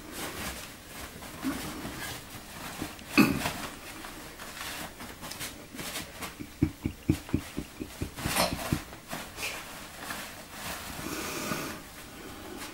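Kittens playing in loose toilet paper: paper rustling and crinkling with light scuffles, a sharp knock about three seconds in, and a quick run of soft low thuds, about five a second, a little past the middle.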